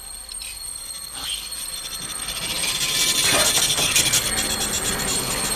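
Film-logo sound design: a rushing, wind-like noise that swells steadily louder from about halfway through, with faint high steady tones above it.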